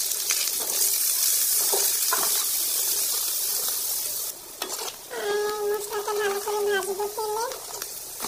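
Sliced onions, green chillies and turmeric sizzling in hot oil in a wok while a spatula stirs and scrapes through them; the sizzle eases about four seconds in. A person's voice is heard briefly on a held pitch in the second half.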